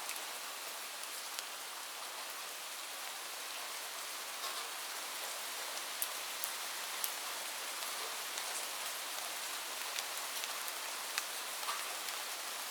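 Light rain falling steadily, a soft hiss with scattered sharper drop ticks.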